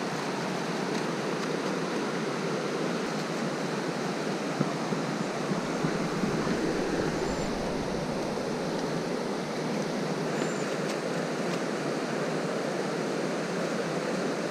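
Steady rushing of a strong-flowing river's current.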